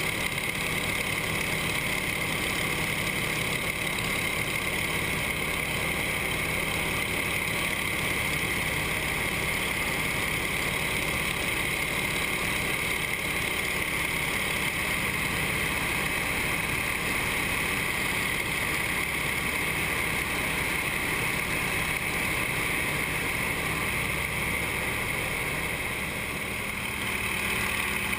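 Steady drone of a trainer aircraft's nine-cylinder radial engine and propeller in cruise, with air rushing over the canopy, heard from inside the cockpit. The loudness dips slightly for a moment near the end.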